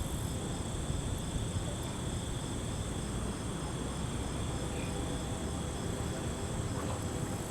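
A chorus of night insects, crickets among them, trilling steadily at several high pitches, one in a fast pulsing rhythm, over a low steady rumble.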